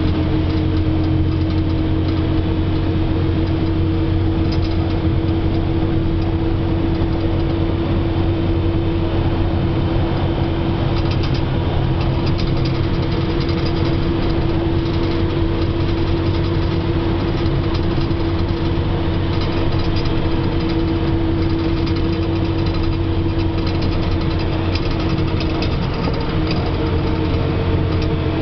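Steady engine and road drone heard from inside a moving vehicle's cab at highway speed, with a constant low hum and a steady mid-pitched tone running through it.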